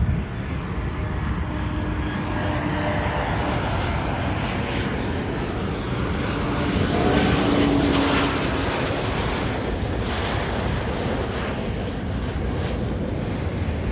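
Jet airliner's turbofan engines: a steady rushing noise with faint tones that bend in pitch, swelling a little about halfway through.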